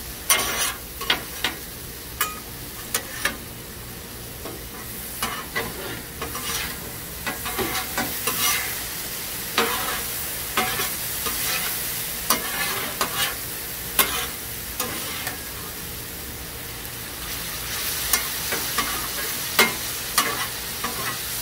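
Two metal spatulas scraping and clacking on the steel top of a Blackstone flat-top griddle as they chop and turn ground beef, with irregular sharp clacks over a steady sizzle of the meat simmering in a little water and taco seasoning.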